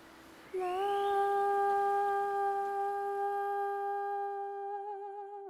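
A woman's voice sings one long held note, starting about half a second in with a slight scoop up to pitch, wavering in a vibrato near the end and falling away quickly as it ends. It is the opening of a song.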